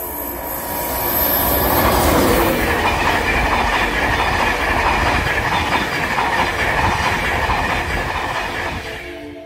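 LNER InterCity 225 express, a Class 91 electric locomotive with Mark 4 coaches, passing close at speed. The rush of wheel and rail noise swells about a second in, stays loud as the coaches go by, and fades away near the end.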